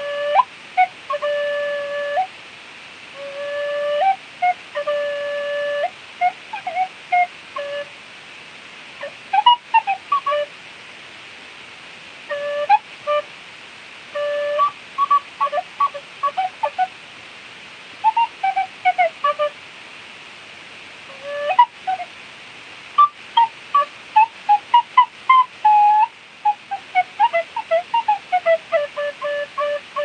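Clarke Sweettone tin whistle played solo in a free improvisation. Some held low notes alternate with quick runs of short notes, with brief pauses between phrases, and a descending run near the end, all over a steady faint hiss.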